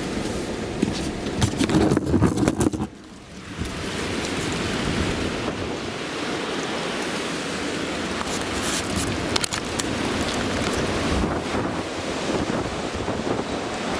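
Strong thunderstorm wind rushing steadily, with gusts buffeting the microphone. A few knocks and clicks come in the first three seconds, then a short lull about three seconds in before the steady rush returns.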